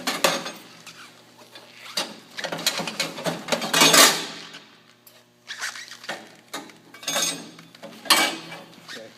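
Irregular metallic clinks, rattles and scrapes as a 5.0 V8 and T5 transmission are worked down into the car's frame on an engine hoist, with a longer scraping rush about four seconds in.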